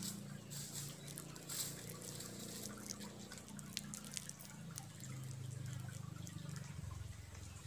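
Water trickling and dripping in a shallow stream, with many small irregular drips and splashes over a low steady hum.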